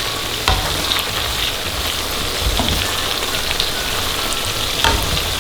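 Shallots sizzling and crackling as they fry in hot oil in a wok, cooking toward brown and crispy. Two short knocks, about half a second in and near the end.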